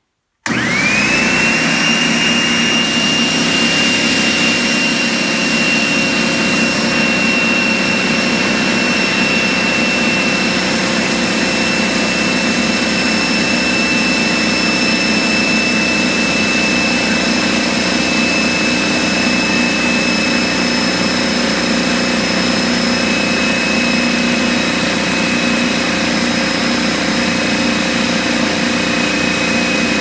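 DeWalt D55168 15-gallon air compressor with a 1.6 hp motor, switched on about half a second in and then running steadily and loudly, with a high whine that rises quickly at start-up and then holds.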